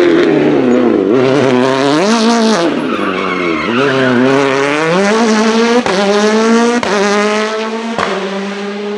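Hyundai i20 WRC rally car's turbocharged 1.6-litre four-cylinder revving up and down hard as it slides through tight turns, with tyres squealing. In the second half it accelerates through three quick upshifts, the revs climbing and then dropping sharply at each change.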